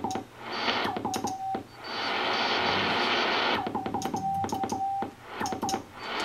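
Morse code sent by hand key on a homebrew single-tube 6AQ5 QRP CW transmitter, heard through the National NC-183D receiver as short beeps at one pitch, each with a click at its start. There are two bursts of sending; between and after them comes the receiver's steady band hiss.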